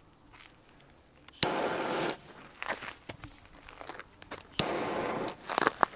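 Two short hissing bursts, each starting sharply and lasting well under a second, as the fuses of Dumbum 5G firecrackers are lit. Light crunching footsteps on gravel between and after them.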